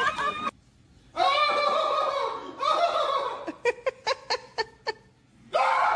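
A person laughing: two longer laughs, then a quick run of short 'ha-ha-ha' bursts.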